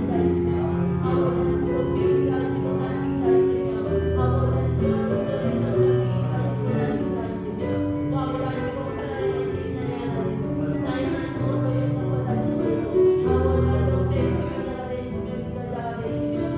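Slow, held chords on a keyboard with a deep bass, under the massed voices of a congregation praying aloud together, many voices overlapping.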